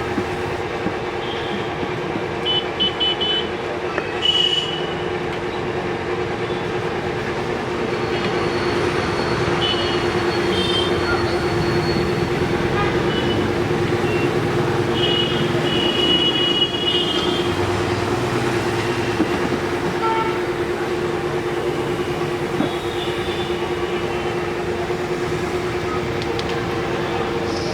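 A steady mechanical hum holding two constant tones, with short, high-pitched horn-like toots now and then.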